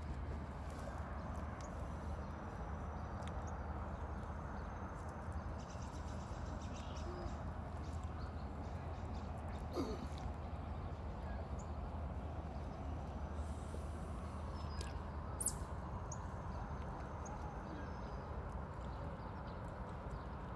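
Steady outdoor background noise: a low hum with a light hiss, broken by a couple of brief clicks.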